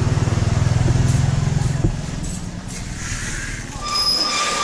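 A motor vehicle's engine running close by with a fast low pulse, stopping about two seconds in; near the end a high-pitched squeal sets in.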